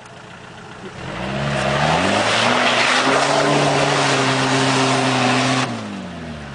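Off-road 4x4's engine revving up about a second in and held at high revs for around three seconds under a broad rushing noise, then dropping off sharply near the end. This is full throttle to drive the vehicle out of a difficult spot.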